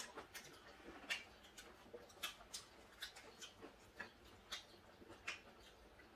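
Faint, irregular clicks and taps of people eating at a table: chopsticks and spoons touching dishes, with small mouth sounds, about a dozen light ticks over several seconds.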